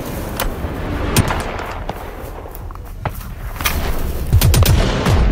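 Dubbed-in gunshot sound effects: scattered single shots, a second or so apart, over a steady low rumble.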